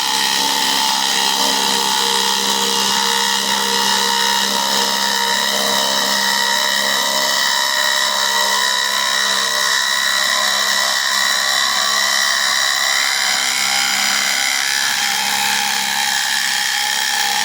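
Ridgid subcompact brushless 3/8-inch impact wrench hammering continuously as it drives a 1/2 x 8 inch lag bolt into wood. It stops suddenly near the end when the bolt is sunk.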